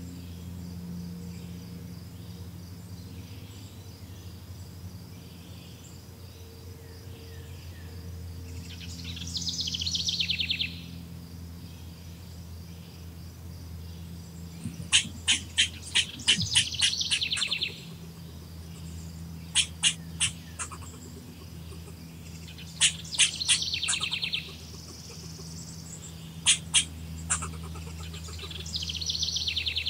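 Birds calling: short buzzy trills alternating with quick runs of sharp, high chip notes, several a second, over a low steady hum.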